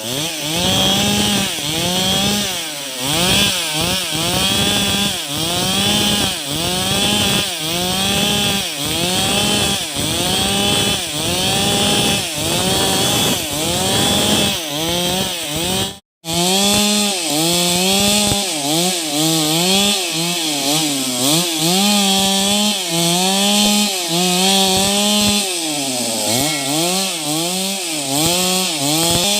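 Two-stroke chainsaw cutting wood, its engine pitch dipping and climbing back over and over as the chain bites under load, at first about once a second. It cuts out for an instant about halfway through, then rises and falls in slower, longer swings.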